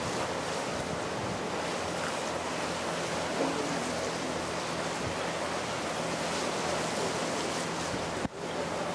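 Sea waves washing against the breakwater stones, with wind blowing across the microphone; a steady rushing noise that briefly drops out near the end.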